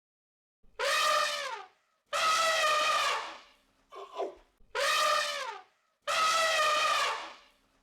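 An animal giving a series of loud, horn-like calls, each about a second long and dropping in pitch at the end, with a short double call in between.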